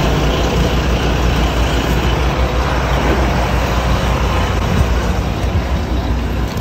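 Yellow Volvo city buses running and manoeuvring close by at a bus terminal: a steady, loud engine rumble mixed with traffic noise.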